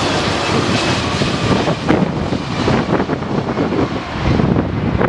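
Boeing 757 jet engines on final approach passing close by, a loud steady rush of engine noise whose hiss thins out near the end, with wind buffeting the microphone.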